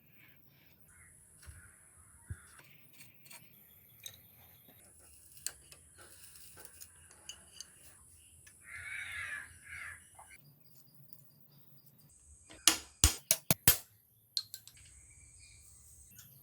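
Faint scattered taps and clicks, a harsh bird call lasting about a second and a half just past the middle, then a quick run of about five loud, sharp clicks or knocks near the end.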